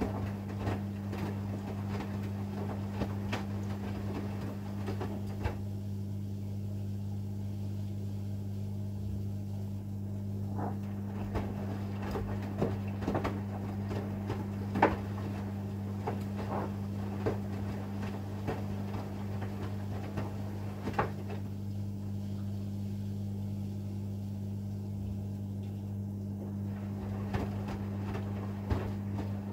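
AEG Lavamat front-loading washing machine in its wash phase: the drum tumbles the laundry with irregular soft knocks and splashes over a steady electrical hum. Twice the tumbling stops for about five seconds, the pause before the drum reverses.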